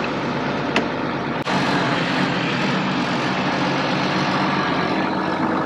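Tractor engine running steadily, with a brief break about a second and a half in.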